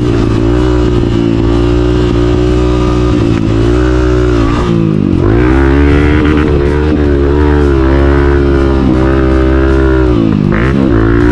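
Honda CRF 250F's single-cylinder four-stroke engine running under riding load, its note dropping and climbing again several times as the rider rolls off and on the throttle and shifts.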